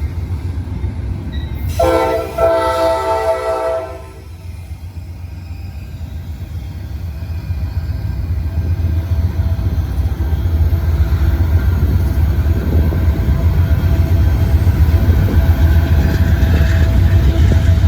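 Diesel freight locomotive air horn sounding one blast of about two seconds, a couple of seconds in, over the steady low rumble of a freight train rolling by. The rumble grows steadily louder through the rest as a second freight train approaches on the other track.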